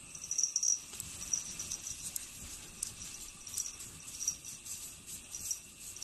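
A cat's paws scratching and digging at a wall of packed snow: a run of quick, irregular light scrapes.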